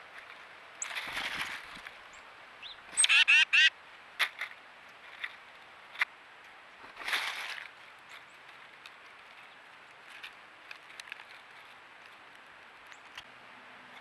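White-breasted nuthatch giving a quick run of about four nasal, quacking calls about three seconds in. Two short rustling bursts and a few sharp light clicks are heard around the calls.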